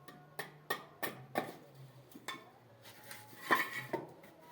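Irregular sharp taps and metallic clinks of hand tools, about seven in all, the loudest a clattering cluster about three and a half seconds in, over a faint low hum.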